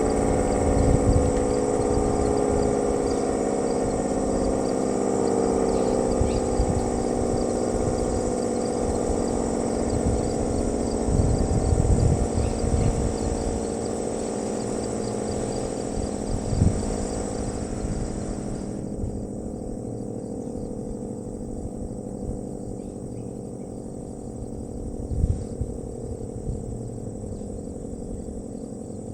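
Federal Signal SD-10 outdoor warning siren winding down at the end of its test: its tone slowly falls in pitch and fades. An irregular low rumble runs underneath.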